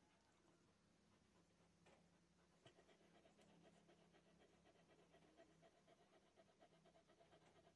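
A mother dog panting faintly, with quick, even breaths starting about three seconds in.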